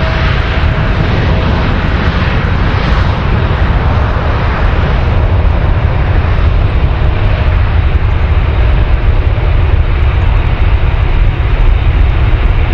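Boeing 787 Dreamliner jet airliner rolling down the runway at speed, its engines giving a loud, steady rush over a deep rumble. A faint steady whine is heard in the first second or two.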